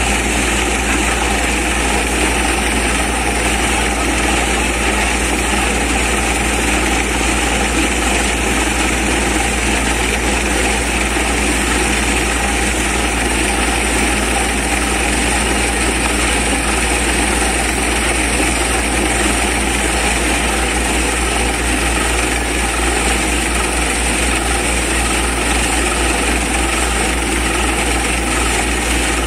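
Borewell drilling rig and its air compressor running steadily and loudly, a continuous heavy engine drone with a hiss of air.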